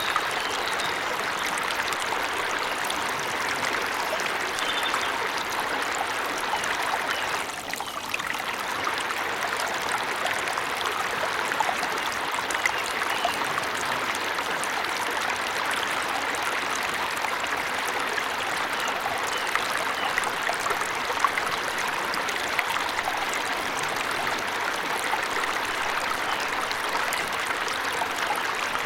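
Waterfall in a forest: a steady rush and splash of falling water, with a brief dip in level about seven and a half seconds in.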